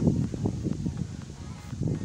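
Wind rumbling on the microphone while walking on a dirt path, with irregular footsteps and brushing sounds.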